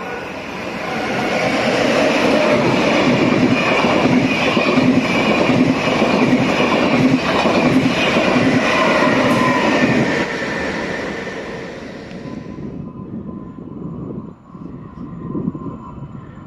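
High-speed passenger train passing at speed: a loud rush of wheel and air noise builds about a second in and holds for about ten seconds. It then falls away sharply, leaving a quieter low rumble.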